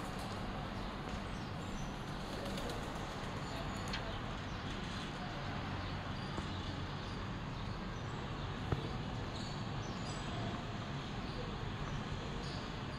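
Feral pigeons cooing over a steady hum of city traffic, with one light sharp tap about nine seconds in.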